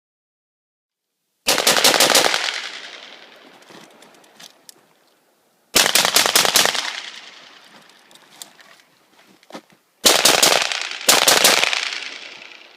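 Rifle gunfire in four rapid strings of several shots each: one about a second and a half in, one near the middle, and two close together near the end. Each string trails off in echo.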